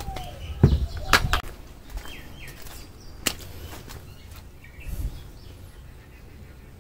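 Handling noise of a plastic bucket of foam carried by its wire handle and set down on concrete: a few knocks and clatters, the loudest about a second in, a sharp click a little after three seconds and a dull thud near five seconds.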